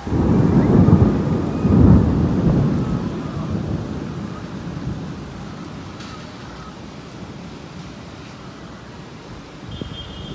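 A thunderclap breaking suddenly and rumbling, with a second, louder peak about two seconds in, then dying away over several seconds into the steady hiss of rain.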